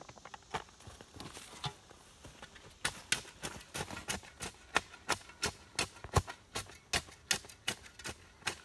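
Shovel blade chopping repeatedly into dirt, working powdered deer mineral into the soil: quick sharp strikes about three a second, starting about three seconds in, with a few scattered ones before.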